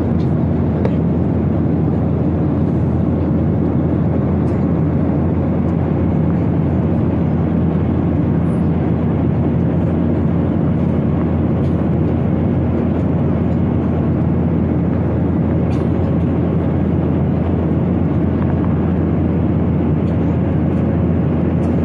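Steady cabin noise of an airliner in flight: the even rush of engines and airflow heard inside the passenger cabin, with a low hum underneath.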